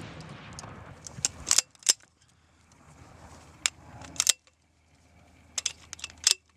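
Sharp reports of weapons fire on a live-fire range, M203 grenade launchers firing with rounds bursting downrange: about ten short cracks at irregular intervals, several coming in quick pairs.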